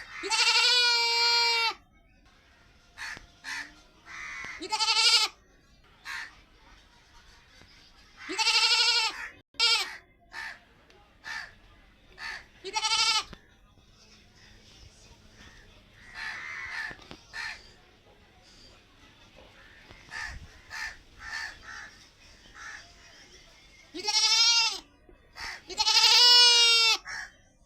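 Domestic goat bleating: about six loud, quavering calls, several over a second long, with pauses between them.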